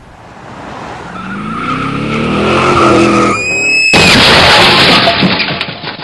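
A car engine rises in pitch and loudness, then tyres screech for about half a second. A loud car crash follows about four seconds in and lasts about two seconds.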